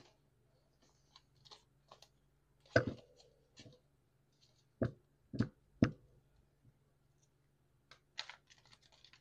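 Tarot cards being handled and shuffled in the hands: scattered soft clicks and card-edge taps, with about four sharper taps between about three and six seconds in.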